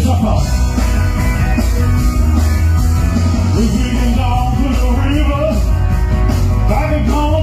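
Rock and roll music: a male voice singing over a band with a strong bass line.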